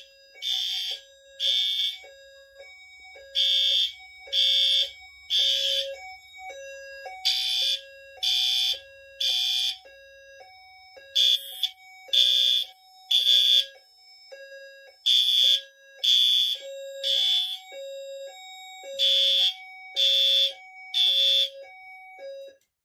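Fire alarm horns sounding in the temporal-three evacuation pattern: three loud blasts, a pause, then three more, over and over. Under them a lower two-note tone repeats about once a second. All of it cuts off suddenly near the end.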